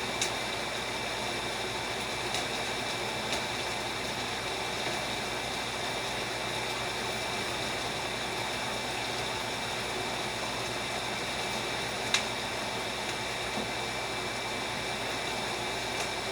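Steady hiss of brown stew fish and rice and peas simmering in pots on the stove, with a faint whine under it and a few light clicks, the sharpest about twelve seconds in.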